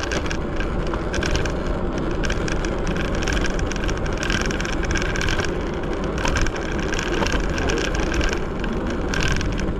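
Segway Ninebot ES4 electric scooter riding over city pavement on solid tyres: a dense, continuous rattle of tyres and frame over a steady low rumble, the road vibration that solid tyres pass straight through.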